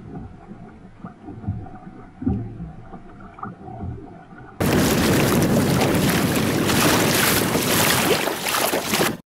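Water lapping against a kayak's hull, quiet, with a few small knocks. About halfway it jumps suddenly to a loud, steady rush of wind and water across the microphone, which drops out for a moment near the end.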